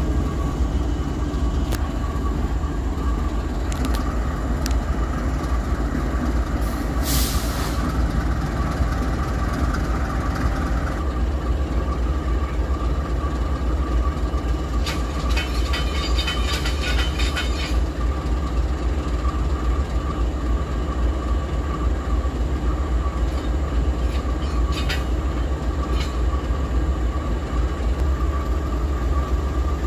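Diesel-electric freight locomotives idling and creeping together to couple: a steady deep engine rumble with a constant whine over it. A few brief rattles and clicks sound around a quarter and a half of the way through.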